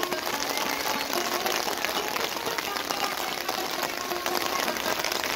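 Steady rain falling, a continuous hiss dotted with many fine drop ticks close to the microphone.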